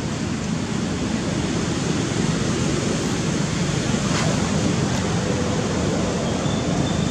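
Steady outdoor rushing noise, heaviest in the low range, with a faint thin high tone near the end.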